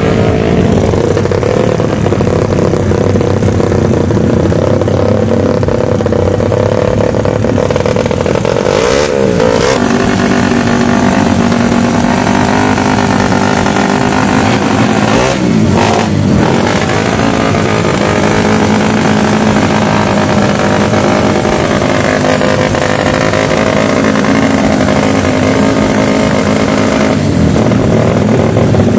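A Suzuki Satria FU motorcycle engine running hard at steady high revs, its pitch dropping sharply twice, about nine and fifteen seconds in.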